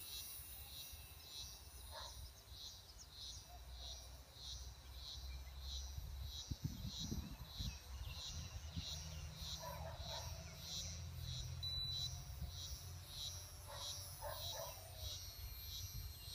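A cricket chirping steadily, about two chirps a second, over a low rumble of wind on the microphone that gusts briefly about six seconds in.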